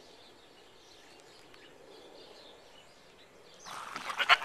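Quiet outdoor background with faint bird chirps. Near the end comes a short, loud burst of crackling and rustling clicks.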